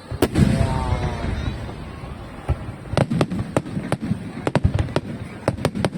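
Fireworks display: a large shell bursts with a deep boom just after the start, followed from about three seconds in by a rapid series of sharp crackling pops.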